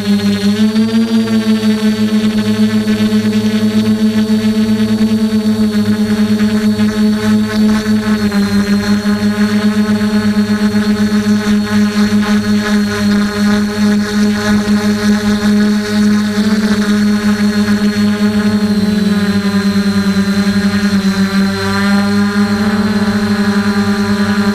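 DJI F450 quadcopter's electric motors and propellers whirring steadily, close up from a camera on the frame, the pitch dipping and rising slightly a few times as the throttle changes.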